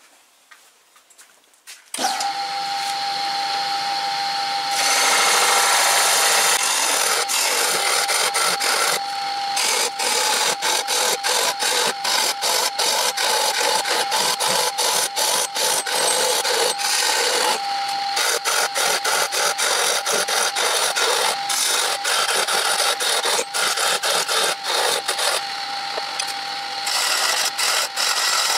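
Wood lathe starting up about two seconds in and running with a steady whine, then a hand-held turning chisel cutting the spinning wooden blank: a loud, rough scraping full of rapid ticks that keeps on with short breaks.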